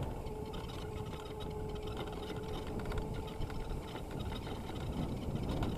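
Razor MX650 electric dirt bike's electric motor whining at one steady pitch while riding over grass, under a low rumble of wind and tyre noise. The whine fades about four seconds in.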